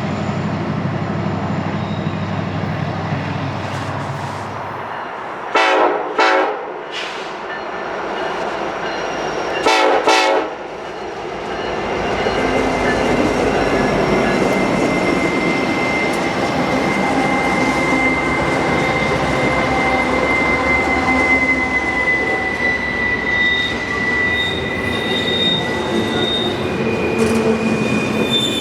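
Train passing: a diesel locomotive drones low at first, and its horn sounds in short blasts, two about six seconds in and another pair about ten seconds in. A steady rumble of rolling cars follows, with a thin, high wheel squeal.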